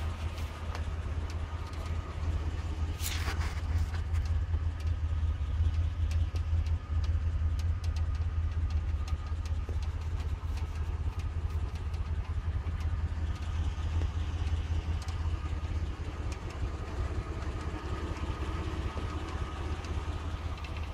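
1993 GMC Jimmy's V6 engine idling steadily, a low even hum.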